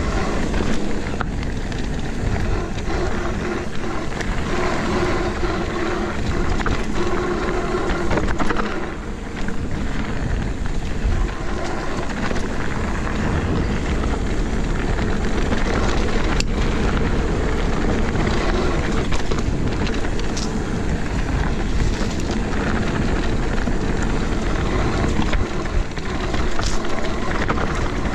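Mountain bike riding down a dirt trail, heard from an action camera on the rider or bike: wind rushing over the microphone, tyres rolling and the bike rattling, with a few sharp knocks from bumps.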